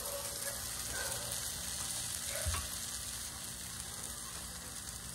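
Takoyaki batter sizzling steadily in the hot holes of a takoyaki pan, with one faint tap about halfway through.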